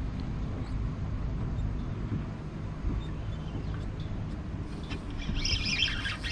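Steady low rumble of wind buffeting the microphone on an open boat deck. About three-quarters of the way in, a fast, high-pitched chattering sound comes in as the rod is swept back onto a fish.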